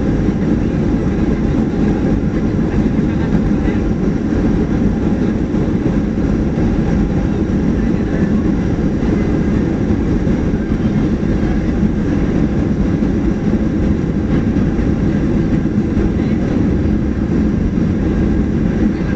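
Steady, loud rumble heard inside the cabin of a Boeing 737-800 rolling out on the runway after touchdown with its spoilers raised: engine noise mixed with the rumble of the wheels and airframe.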